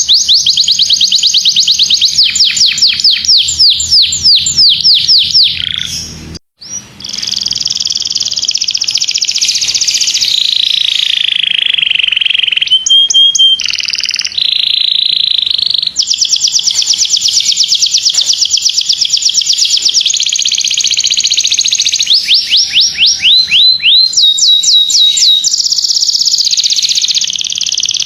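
Domestic canary singing a long song of rapid trills and fast repeated notes, with runs of quick downward-sweeping notes. There is a brief break about six seconds in.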